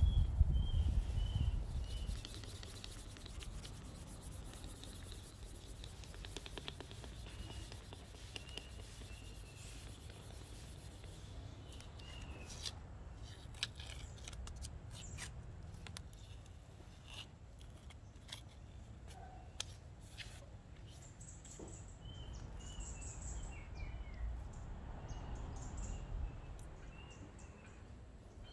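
Sandpaper rubbing and scratching by hand on a rosewood axe handle, in uneven strokes with scattered light clicks of handling. A low rumble sits under the first two seconds, and small birds chirp repeatedly throughout.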